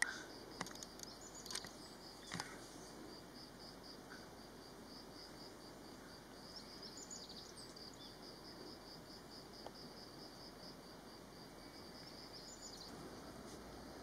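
An insect calling in a steady, even, high-pitched pulsing rhythm of about four to five pulses a second, over faint outdoor background noise. A few short clicks come in the first two seconds or so.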